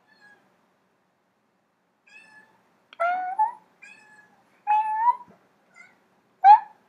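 Domestic cat meowing: three loud meows about a second and a half apart, with a few fainter calls between them.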